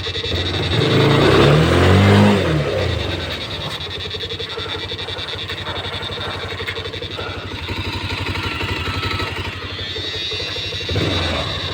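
Vehicle engine revving up and back down about a second in, then running steadily.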